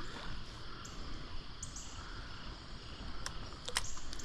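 Steady rush of stream water around a wading angler, with faint high chirps over it and a couple of sharp clicks near the end.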